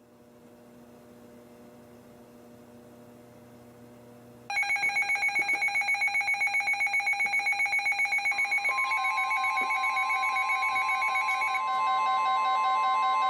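Several NOAA weather alert radios going off together: after a faint hum, their electronic alarms start a rapid beeping about four and a half seconds in. A steady tone near 1 kHz, the weather radio warning alarm tone, joins partway through, and near the end the beeping gives way to steady tones. The alert announces a flood warning.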